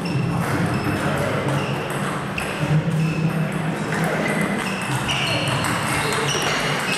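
Table tennis balls ticking off bats and the table in a rally, irregular sharp clicks a fraction of a second apart, over a steady low hum.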